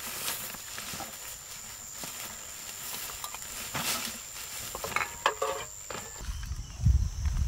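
Dry bamboo leaves and plastic litter rustling and crinkling as rubbish is gathered by hand into a woven plastic sack. A short pitched call sounds about five seconds in, and a low rumble takes over near the end.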